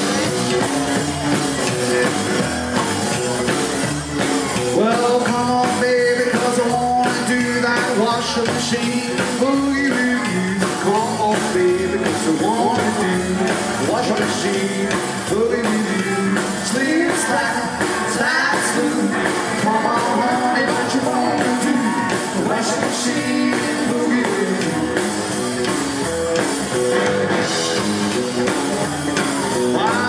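Live rockabilly band playing a boogie on electric guitar, upright double bass and drum kit.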